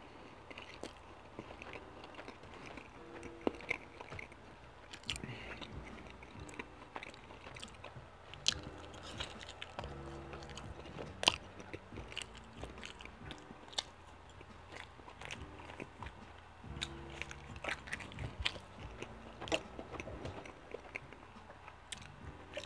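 A person chewing and biting stuffed-crust pepperoni pizza, with many irregular sharp mouth clicks; the two loudest come about 8 and 11 seconds in.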